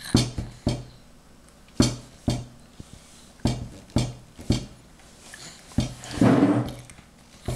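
Irregular sharp knocks and taps on a hard surface, about nine of them. Around six seconds in comes a longer, louder noisy sound with a low tone under it.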